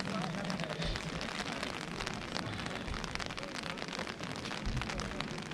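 Rain falling, a dense patter of individual drops striking close by, with a few low thumps mixed in.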